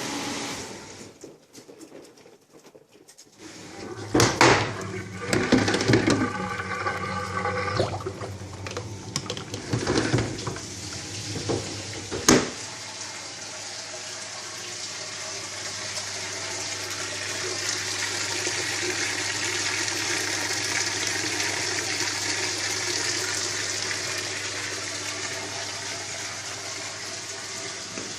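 Meiko EcoStar 530F front-loading commercial dishwasher running a wash cycle, water spraying and splashing inside the cabinet. It comes in uneven surges at first, with a sharp click about twelve seconds in, then settles into a steady rushing spray over a low hum.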